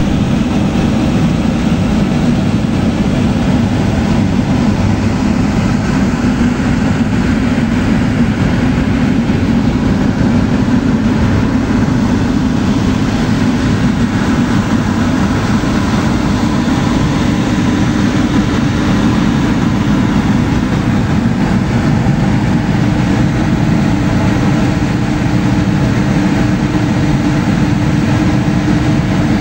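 Drilling rig machinery running: a loud, steady, low mechanical drone that does not let up.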